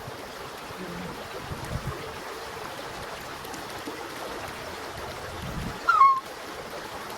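Flowing water rushing steadily, with one short, sharp, high call about six seconds in.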